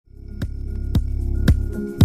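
Logo intro music: a low droning hum fades in, under deep drum hits that drop in pitch, about two a second.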